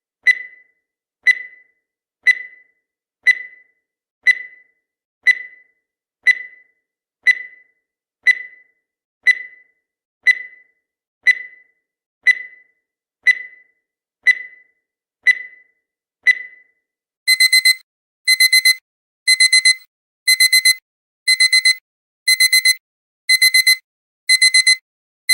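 Digital countdown timer sound effect: a short, quickly fading beep once a second for the last seconds of the countdown, then, at about 17 seconds in, the timer's alarm goes off as a digital alarm-clock beeping, bursts of four quick beeps about once a second.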